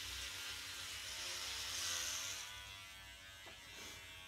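Electric hair clippers running with a steady buzz while cutting hair. The hiss of the blades is loudest about two seconds in.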